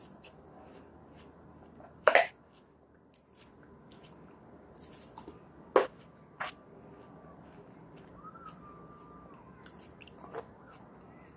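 Yellow plastic Play-Doh tubs and dough being handled on a plastic high-chair tray: a few sharp taps and knocks, the loudest about two and six seconds in, with quieter handling noise between.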